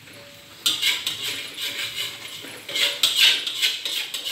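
Hot wok suddenly starts sizzling loudly about half a second in, as oil is added for frying rice, with a metal spatula scraping and clattering against the wok.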